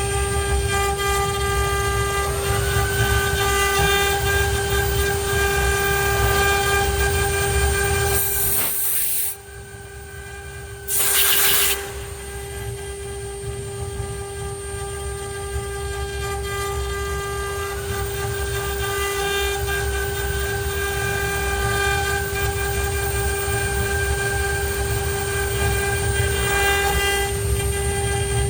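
ART1325 CNC router running, its spindle giving a steady high-pitched whine with other motor whines sliding up in pitch now and then as the machine moves. The sound drops away sharply about nine seconds in, and a short loud rushing burst follows a couple of seconds later.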